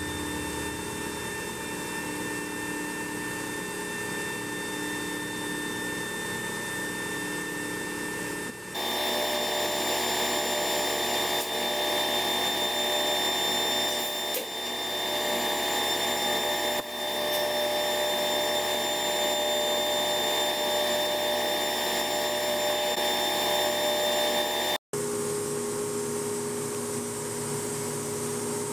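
Automatic edgebanding machine running steadily, its motors and trimming units giving a constant mechanical hum while melamine panels feed through. The sound shifts abruptly about nine seconds in, then cuts off near the end, leaving a quieter steady hum.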